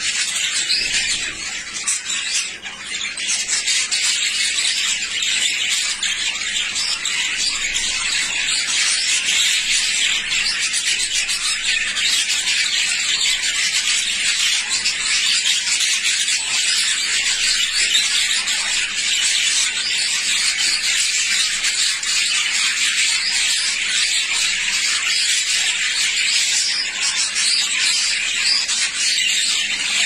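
Budgerigars chattering and chirping together, a dense, steady high-pitched chatter.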